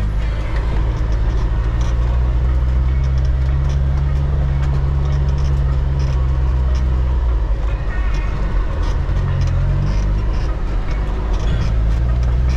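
A 4x4's engine runs steadily at low revs over a rutted dirt track, with scattered knocks and rattles from the body and suspension over the bumps. The engine note shifts up and down a few times in the second half.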